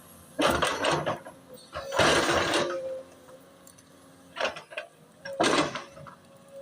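Excavator at work: four bursts of scraping and rattling over a faint steady hum.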